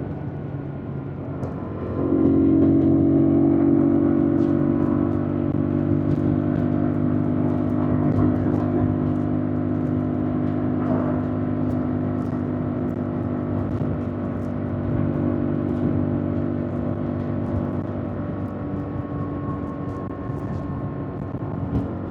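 2025 Yamaha MT-07's parallel-twin engine under way: lighter for the first couple of seconds, then the throttle opens about two seconds in and the engine holds a steady pitch, easing off gradually toward the end.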